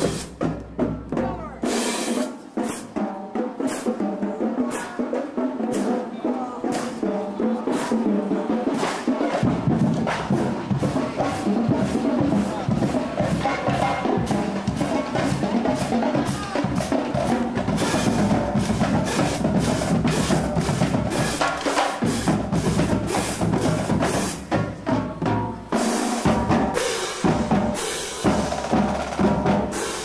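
Marching band drumline playing a steady cadence: snare drums, bass drums and crash cymbals in quick, even strokes. The deep bass drum notes drop out about two seconds in and come back about nine seconds in.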